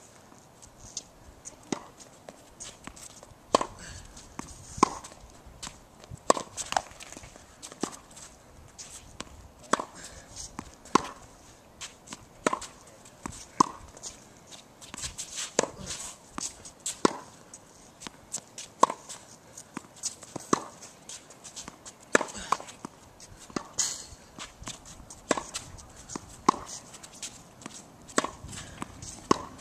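Tennis rally on a hard court: a regular run of sharp pops as the ball is struck by the rackets and bounces on the court, about one every second or so.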